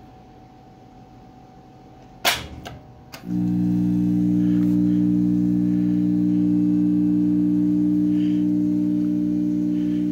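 A magnetizer for recharging AlNiCo speaker magnets is switched on: a loud clack about two seconds in and two lighter clicks, then the machine sets up a loud, steady electrical hum about three seconds in that holds without change.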